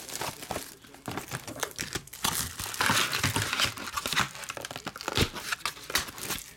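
Clear cellophane shrink wrap crinkling and tearing as it is stripped off a trading-card hobby box and crumpled, a dense irregular crackling that is busiest in the middle.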